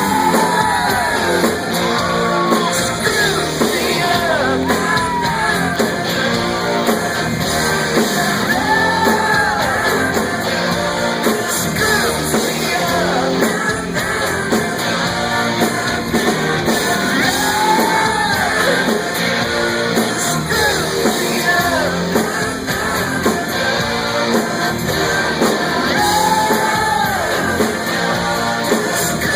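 Rock song playing: a man sings over a full rock band.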